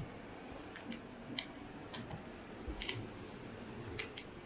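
About seven faint, sharp clicks at uneven intervals over a quiet background.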